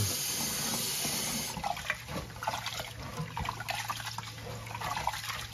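Kitchen tap running into a rice cooker's inner pot in a steel sink while rice is washed by hand. The flow stops about a second and a half in, leaving the irregular splashing of hands rubbing the rice in the water.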